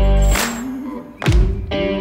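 Background music: a guitar-based rock track with sustained notes and a heavy low hit just over a second in.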